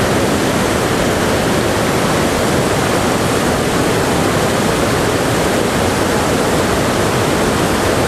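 Large waterfall in full flood, swollen by water released from an upstream dam after heavy rain: a steady, loud rush of falling water.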